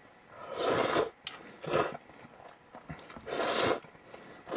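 A person slurping a bowl of soba and ramen noodles in broth: three long slurps, with a fourth starting at the very end.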